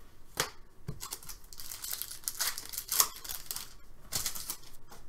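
Trading-card pack wrappers being torn open and crinkled, with a few sharp clicks as cards and packs are handled.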